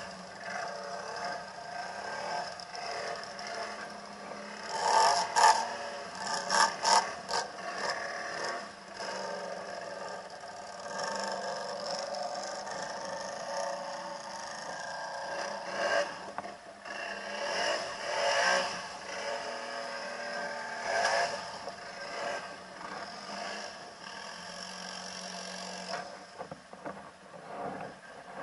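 ATV engine running and revving as the quad crawls through a muddy, water-filled ditch, with loud bursts of splashing, scraping and clattering from the machine pushing through mud and water, the loudest about five to seven seconds in.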